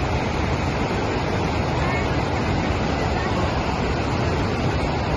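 Niagara River rapids: a steady, loud rush of white water.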